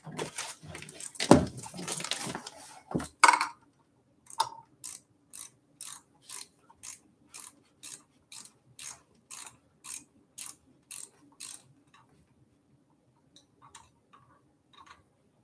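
A few seconds of handling rustle and clatter, then a ratchet clicking steadily, about two clicks a second, for some seven seconds.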